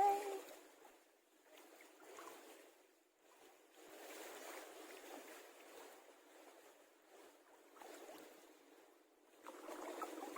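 Faint sea water lapping and sloshing, swelling and fading every couple of seconds.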